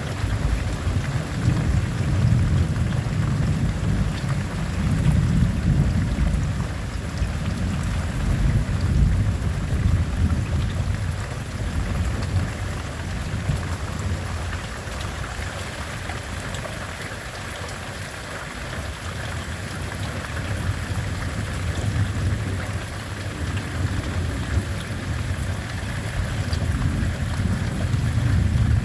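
Steady rain falling, with thunder rumbling that is heavier in the first half, eases off midway and builds again near the end.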